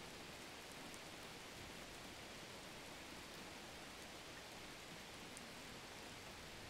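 Faint steady background hiss, with no distinct sound of the spatula working the cream.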